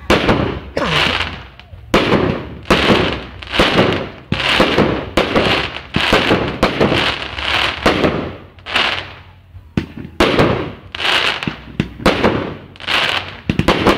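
Fireworks display: shells launching and bursting in quick succession, about one and a half sharp bangs a second, each followed by a short fading rush of noise.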